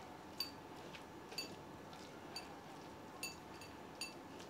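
Faint regular ticking, about one short bright click a second, over quiet room tone.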